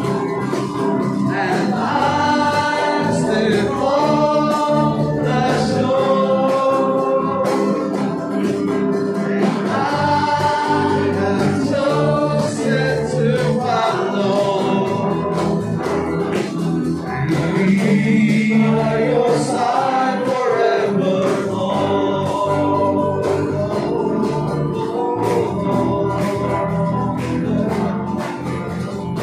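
Live worship band performing a gospel song: a man sings lead over electric guitar, acoustic guitar and keyboard.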